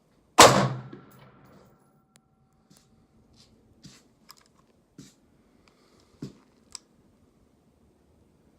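A single shot from a Daniel Defense Mk18 5.56 AR pistol about half a second in, sharp and loud, its echo dying away over about a second. A few faint clicks and knocks follow.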